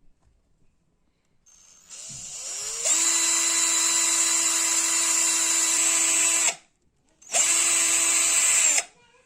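Ozito electric drill running in reverse, driving a screw-extractor drill bit into a stripped laptop screw. It spins up with a rising whine about a second and a half in, runs steadily for a few seconds, stops, then runs again for another second and a half.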